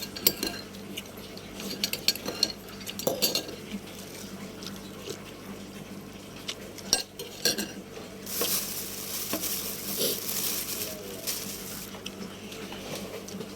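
Kitchen utensils clinking and knocking against dishes and pots, in scattered sharp strikes. A steady hiss rises past the middle and lasts about three and a half seconds.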